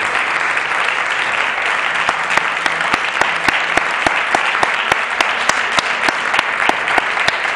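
Small audience applauding steadily, with many individual sharp claps standing out.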